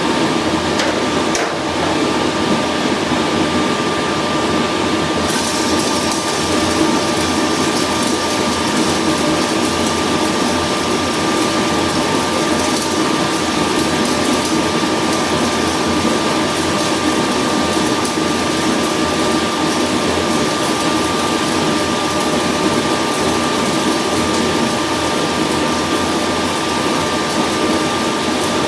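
Cremains processor running steadily, its motor grinding brittle cremated bone fragments down to ash. It gives a continuous mechanical drone with a thin high hum, and the hiss grows brighter about five seconds in.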